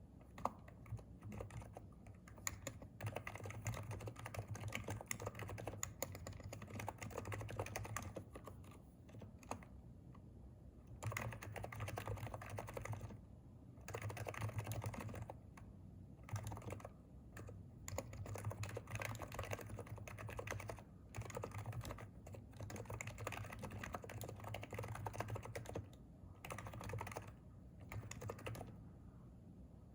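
Typing on a Hansung electrostatic capacitive (non-contact) keyboard: runs of rapid keystrokes broken by brief pauses every few seconds.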